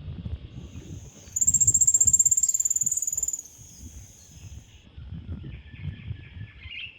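Grayish piculet giving a high, thin trill of rapid notes, starting about a second in and lasting about two seconds, over a low rumble.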